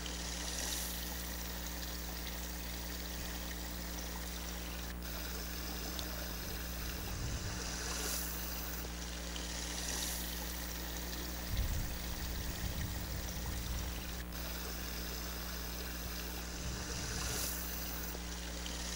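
A small stream of water running steadily, with a few brief low rumbles.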